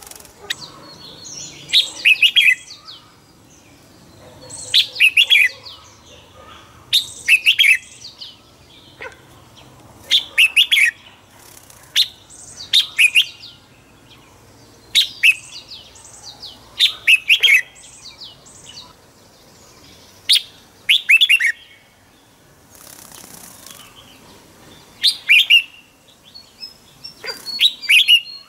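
Red-whiskered bulbul singing short, rapid phrases over and over, about one every two seconds, with a brief pause a little past the middle.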